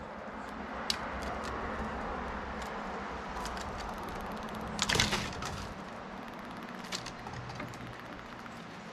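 Eastern gray squirrel feeding at a seed dish on a wooden railing: scattered sharp clicks and taps of seed husks and claws on wood over a steady background hiss, with a louder flurry of clatter about five seconds in.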